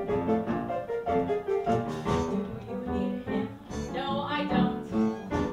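Live show-tune accompaniment led by piano, with a woman singing over it.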